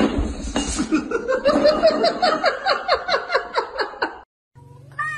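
A person laughing hard in a rapid run of ha-ha pulses, about four a second, after a few sharp knocks at the start; the laughter cuts off suddenly near the end.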